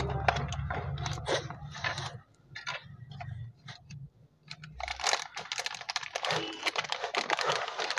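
Packaging being handled and opened: a run of small clicks, scrapes and crinkles of cardboard and plastic wrapping, densest in the second half. A low hum underlies the first two seconds and stops.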